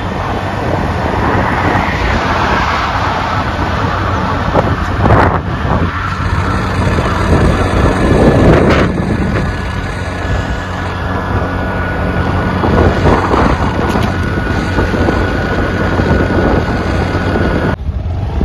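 Vehicle engine hum and road noise while travelling along a highway, with wind buffeting the microphone. The noise swells briefly a few times, most strongly about five and eight seconds in.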